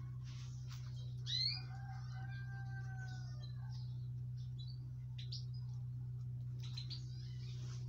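European goldfinches calling with short, high chirps, most of them in the second half. A drawn-out call holds steady for about a second and a half near the start. A steady low hum runs underneath.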